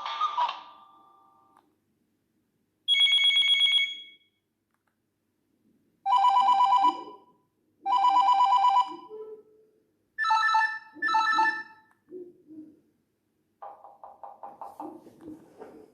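Nokia 6600 mobile phone playing its built-in ringtones through its loudspeaker: separate bursts of a rapid trilling, telephone-bell-like ring. There is one short burst, then two longer rings a couple of seconds apart, then two shorter, higher double rings. A quieter pulsing tone follows near the end.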